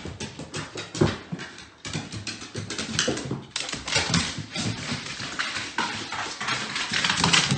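A heavy bull terrier's paws thudding down hardwood stairs: a long run of quick, loud thumps and knocks, the loudest about a second in.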